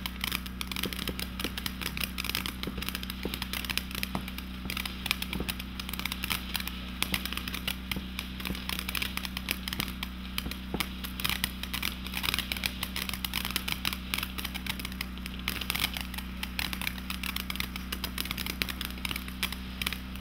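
Ground firework fountain throwing sparks with a continuous dense crackle of many small pops a second.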